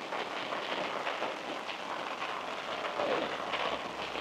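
Steady rain pattering, a dense run of small drops hitting a surface.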